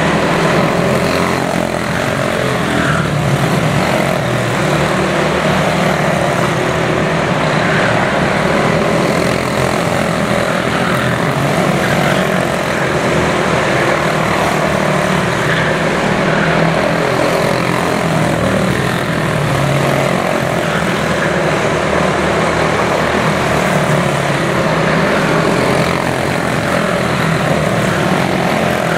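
Several quarter midget race cars with Briggs & Stratton Animal single-cylinder engines racing together, making a steady, overlapping engine drone.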